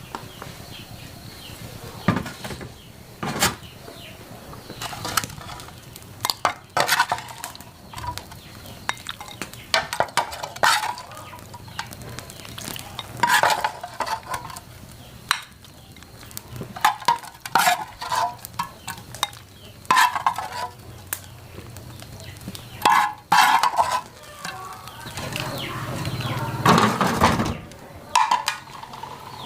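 Irregular clinking and clattering of metal pots, pans and utensils, a knock or scrape every second or so, with a louder, denser stretch of noise near the end.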